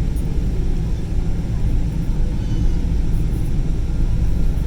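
Steady low rumble inside the cabin of a Boeing 777-200ER taxiing to the gate: engines running at low taxi thrust along with the rolling noise of the airframe.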